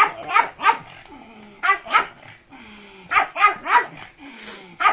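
Pug barking excitedly, sharp barks in quick runs of two or three with short pauses between.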